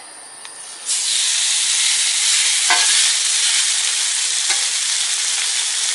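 Thin-sliced ribeye starts sizzling loudly about a second in as it goes onto a hot, oiled Blackstone flat-top griddle. The sizzle holds steady, with a couple of light knocks.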